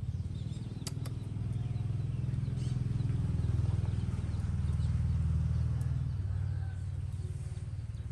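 Low, pulsing engine rumble that swells over a few seconds and then fades, with a couple of faint clicks about a second in.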